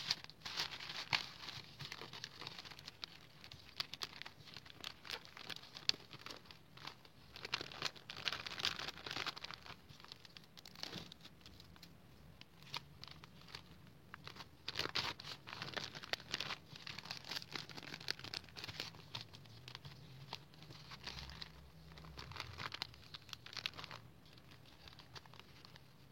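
Packaging being handled while an order is packed: crinkling and rustling in repeated bouts, with many small crackles.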